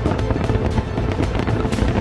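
Loud music with rapid fireworks bangs and crackling mixed over a low rumble.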